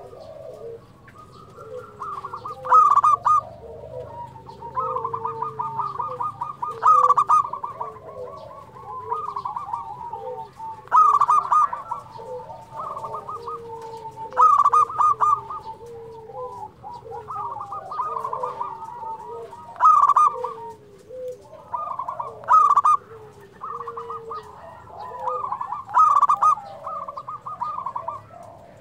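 Local Indonesian zebra doves (perkutut) singing: a loud, rapid, stuttering coo phrase comes every few seconds, with softer, lower coos in between. This is the persistent song used as a lure to make other perkutut answer.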